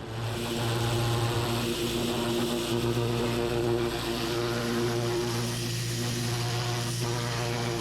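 Engine-driven pressure washer running at a steady speed, its engine drone joined by a constant hiss.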